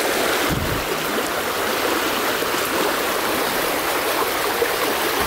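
Shallow stream over stones, its water rushing steadily.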